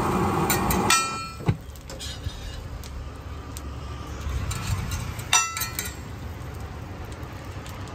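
Flat metal spatula working a large flat griddle: dense scraping for the first second, then a sharp ringing clang of metal on metal about a second in and another about five and a half seconds in, with a quieter low background between.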